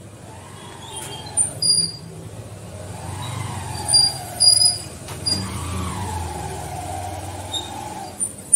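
A motor vehicle engine running close by, its pitch rising and falling a few times, with short high chirps over it.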